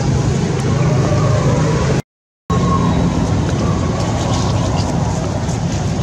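Steady low rumbling background noise, cut off for about half a second around two seconds in, with a faint thin tone.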